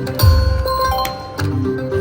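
Electronic music with a short repeating melodic loop. A low boom with bright chiming tones comes in about a quarter second in.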